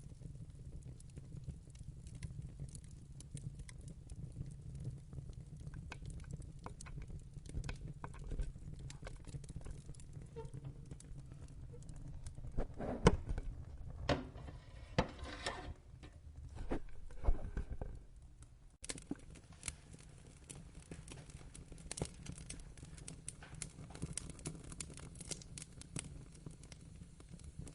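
Wood fire crackling, with irregular sharp pops over a steady low rumble of the flames. A louder run of pops comes in the middle.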